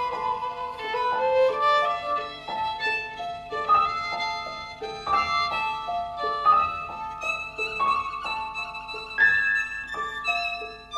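Instrumental background music: a melody of held notes, each lasting about half a second to a second, over a soft accompaniment.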